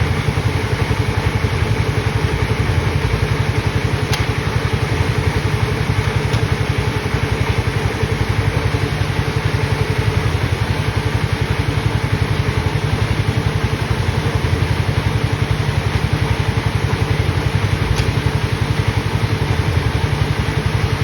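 Sawmill machinery engine running steadily, with a fast, even pulse.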